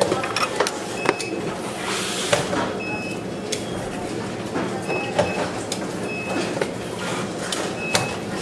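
Power bank assembly-line ambience: a steady machine hum and hiss with scattered sharp clicks and knocks, and short high electronic beeps at one pitch that recur every second or two.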